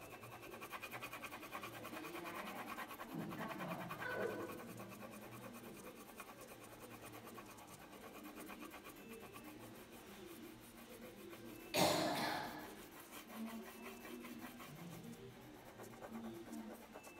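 A crayon scratching on paper in rapid back-and-forth colouring strokes, louder in the first few seconds and fainter after. About two-thirds of the way through there is a single sudden thump, the loudest sound.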